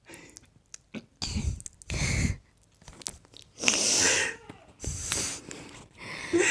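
Stifled giggling: several short bursts of laughing breath puffed straight into a clip-on microphone held close to the mouth, some with a low thump of air on the mic.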